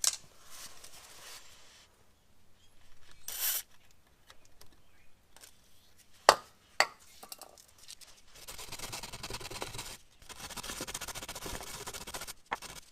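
A hand tool scraping and rasping on rusted metal, in long stretches in the second half, with two sharp metallic knocks about six seconds in.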